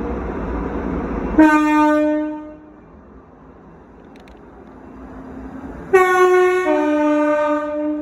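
ScotRail Class 334 train horn. A single low note sounds about a second and a half in, after a rushing noise. Near the end comes a two-tone blast, a high note dropping to a low note.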